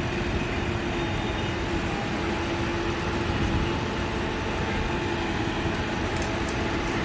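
Heavy engine running steadily, with a steady whine over a low rumble.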